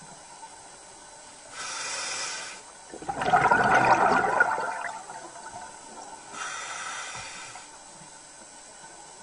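Scuba diver breathing through a regulator underwater: a short hissing inhale, a louder rush of exhaled bubbles, then another hissing inhale.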